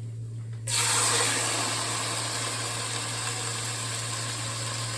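Seasoned chicken sizzling as it goes into a hot pan of cooked onions and garlic: a sudden loud sizzle under a second in that eases slightly, then frying steadily.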